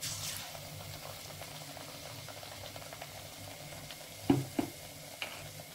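Besan-batter-coated bottle gourd slices deep-frying in hot oil, a steady sizzle that flares up as a fresh slice is dropped into the oil at the start. A couple of sharp knocks come about four seconds in.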